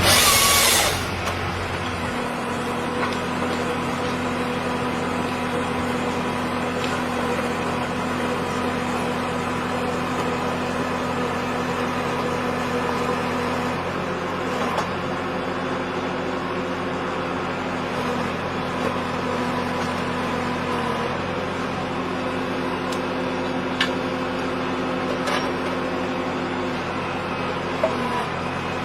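Electric woodworking power tool motor running steadily, a constant hum with a few light clicks; a louder noisy burst at the very start.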